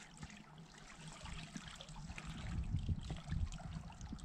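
River water trickling and bubbling close to the microphone, a dense fizzing crackle with soft low knocks, louder in the middle.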